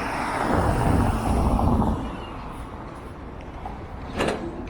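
A road vehicle passes close by: a rising and fading rush of engine and tyre noise over about two seconds, its pitch falling as it goes. A single sharp click comes near the end.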